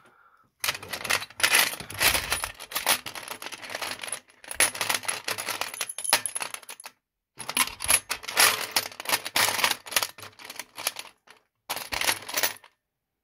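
A pile of old metal keys, ornate bit keys, cylinder keys and key rings, clinking and jangling against each other and the metal cash box as a hand rummages through them. The clinking comes in dense, rapid spells with short pauses and stops near the end.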